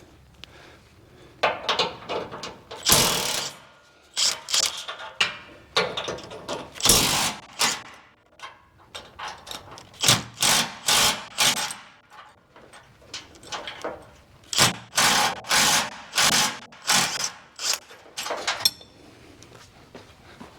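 Power tool run in short bursts on the exhaust bracket bolts, several spurts in quick succession in a few separate clusters, as the bolts are loosened to drop the stock exhaust.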